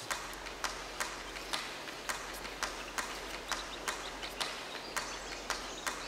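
Newly hatched Madagascar pochard ducklings peeping: short, sharp calls at an uneven two or three a second, over a steady low hum.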